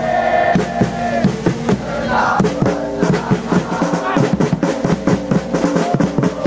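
A crowd of football supporters chanting a song together in unison over a steady bass drum beat.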